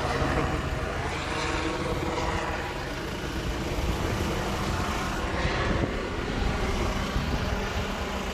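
Engine of a self-loading concrete mixer running steadily at a constant speed, with a low even hum and a layer of mechanical noise on top.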